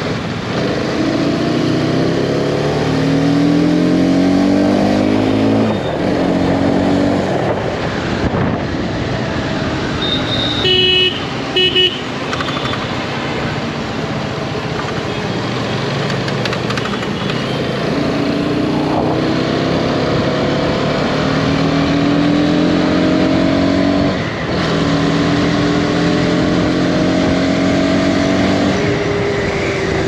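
Hero Karizma XMR 210's single-cylinder, liquid-cooled 210cc engine pulling under acceleration, its note climbing in pitch and dropping back at each upshift, over steady wind and road noise. A vehicle horn gives two short honks about eleven seconds in.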